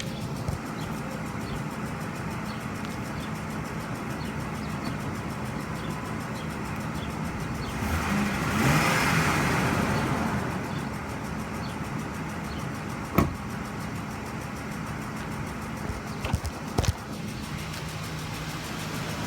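Ford 5.4L three-valve V8 idling with a light, evenly repeating tick, which the owner suspects is the lifters. About eight seconds in, a rushing noise swells for a few seconds, and a few sharp clicks come later, the loudest around thirteen seconds in.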